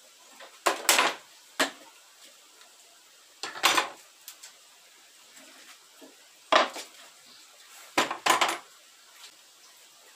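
Hard wooden clunks and clatters of bar clamps being released and pallet-wood boards being lifted and set down on a wooden workbench, about six sharp knocks in small bursts, several of them doubled.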